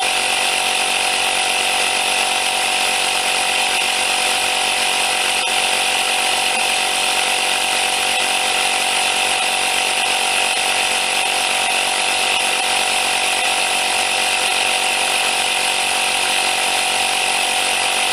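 JACO portable digital tire inflator's compressor running steadily and loudly, pumping up a car tire toward its 31.5 psi set point.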